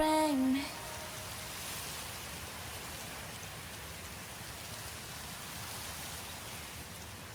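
The song's last note slides down and ends about half a second in, leaving steady rain falling.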